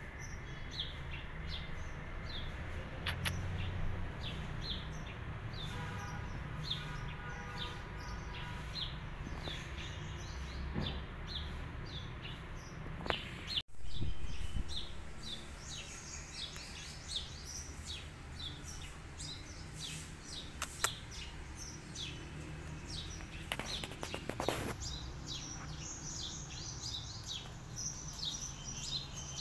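Small birds chirping steadily, many short quick calls overlapping, over a low steady background noise, with a brief break in the sound about halfway through.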